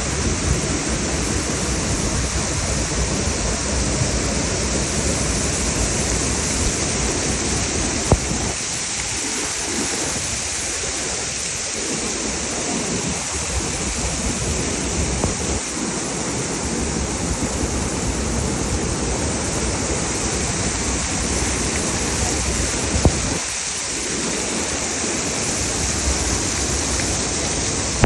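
Waterfall rushing: a loud, steady wash of falling water, with two brief clicks about 8 and 23 seconds in.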